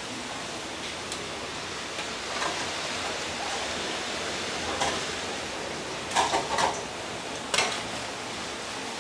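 Metal skimmer clinking and scraping against a wok and a stainless steel colander as blanched pork trotters are scooped out and dropped in, over a steady hiss. A few scattered knocks, with the loudest clatters about six to seven and a half seconds in.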